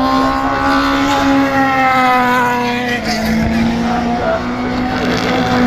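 Racing touring cars' engines at high revs passing at race speed, one car after another. Each engine note falls in pitch as it goes by.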